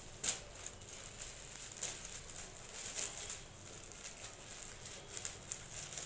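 Caramel sauce thinned with hot water bubbling in a pan, with irregular pops and crackles and the scrape of a wooden spatula stirring it.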